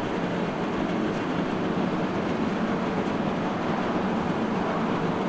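Jet engines of a departing Boeing 787-9 airliner, a steady rumble.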